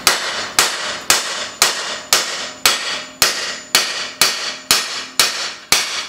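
A heavy hammer striking the back of a ball-peen hammer set against a front wheel hub. The steel-on-steel blows come at an even pace, about two a second and a dozen in all, each with a short metallic ring. The pounding rotates a rust-seized hub bearing assembly in its steering knuckle to break it free.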